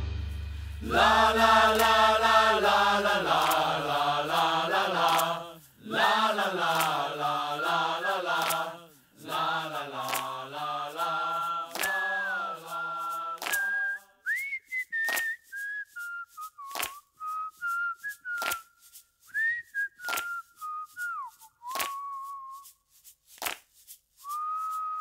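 A solo voice carries a slow melody without clear words. About fourteen seconds in, the tune switches to a person whistling it in single gliding notes, with sharp clicks between many of the notes.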